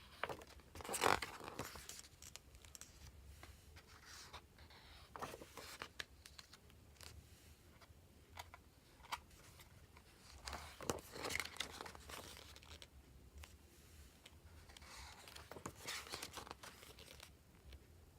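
Packaging being handled, with bursts of rustling, crinkling and tearing every few seconds, the loudest about a second in.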